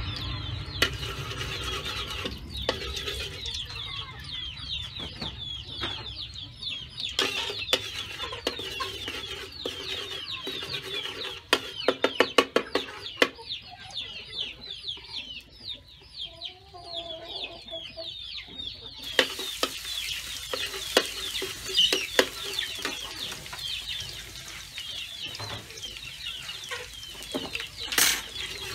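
Chickens clucking and cheeping with many short high calls, over a steel wok being worked with a metal spatula. About twelve seconds in, the spatula clatters against the wok in a quick run of sharp strikes. From about two-thirds of the way through, a steady sizzle is heard as chopped garlic or shallot fries in the oil.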